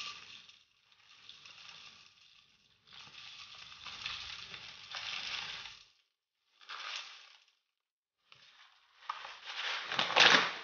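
Rolled oats pouring from a bag into a tall plastic beaker, a dry rustling hiss in several spurts with short pauses between. Near the end the bag crinkles louder as it is lifted and handled.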